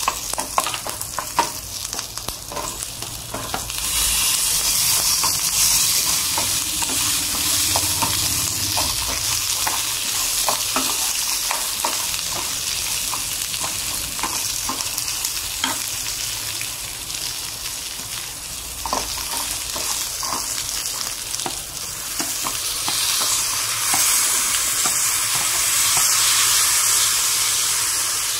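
Dal, dried red chillies, curry leaves and onions sizzling in hot oil in an aluminium kadai, with a spoon stirring and clicking against the pan. The sizzle grows louder about four seconds in and again near the end.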